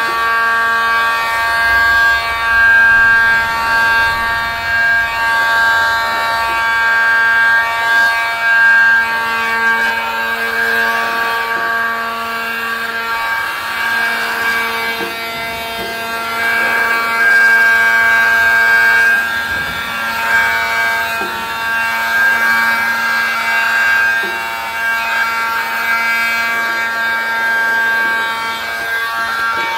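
Metabo heat gun running steadily, its fan motor giving an even whine that swells a little in level now and then, as it heats window tint film on car side glass.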